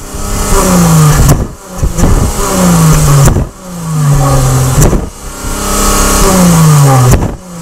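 Dodge Challenger's exhaust heard at the tailpipe as the engine is revved about four times in quick succession. Each rev climbs and then falls away in pitch, with a sharp snap as it ends.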